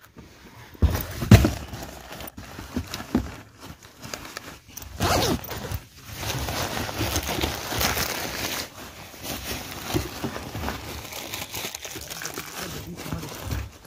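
Plastic and cloth bags of food waste rustling and crinkling as they are handled and packed into a car, with irregular clicks, a couple of loud knocks about a second in, and close handling bumps.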